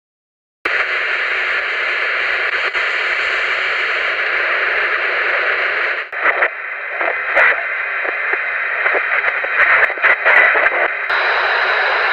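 Radio static: a loud, steady hiss starts about half a second in, breaks up into choppy crackles and flickering snatches in the middle, then settles back to steady hiss near the end.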